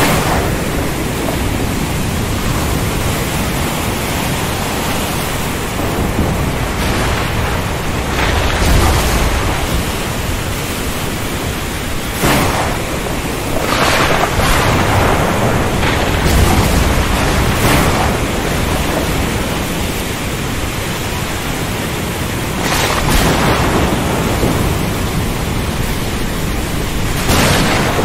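Thunderstorm over the ocean: steady rain and surf noise, with rolling thunder rumbling low about nine seconds in and again around sixteen seconds. Several brief surges of louder noise break through the steady wash.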